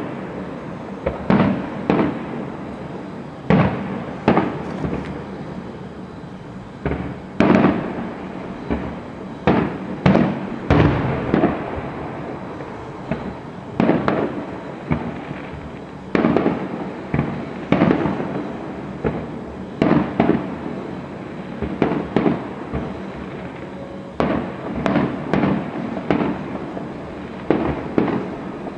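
Aerial firework shells bursting in a continuing series: a sharp bang every second or two, sometimes several in quick succession, each trailing off in an echo.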